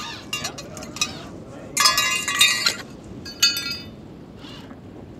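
Several bursts of bright metallic jingling and clinking, each ringing briefly; the loudest lasts about a second, around two seconds in, and a shorter one follows a little later.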